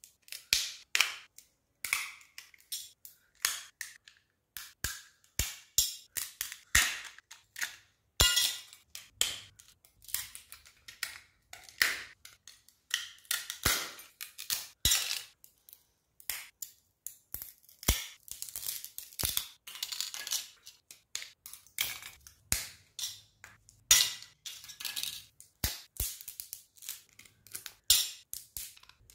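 Small plastic and metal parts of a Nokia Asha 310 phone being pried apart and handled: an irregular string of sharp clicks, snaps and short scrapes.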